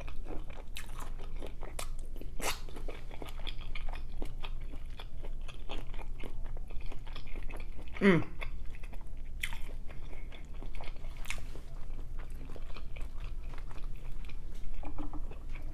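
Close-up eating sounds: biting and chewing seafood boil in butter sauce, with wet smacking and crunching clicks throughout. About eight seconds in, a short sound slides steeply down in pitch.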